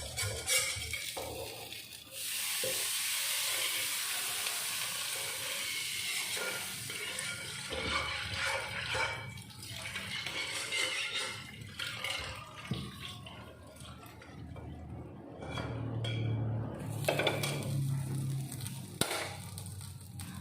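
Kitchen tap switched on about two seconds in, water running steadily into the sink for several seconds, then pots and utensils clattering and knocking.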